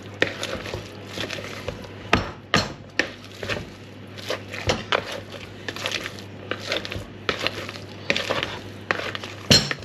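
Metal potato masher mashing cooked potato in a plastic mixing bowl: repeated irregular knocks and thuds against the bowl, the loudest near the end.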